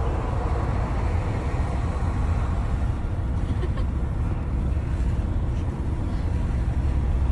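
Wind rushing in through an open car window at highway speed, mixed with road noise inside the moving car: a steady, heavy rumble of wind buffeting.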